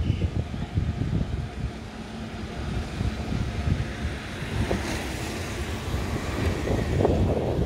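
Wind gusting on the microphone over the low sound of a freight train rolling past.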